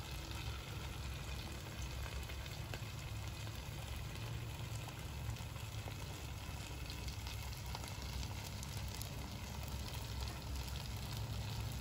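Open wood fire burning under a large pot of oil being heated, with faint scattered crackles over a steady low rumble.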